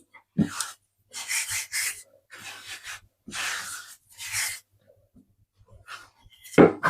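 A person's breaths close to the microphone: about five hissy exhales or puffs in the first four and a half seconds, then a short vocal sound near the end.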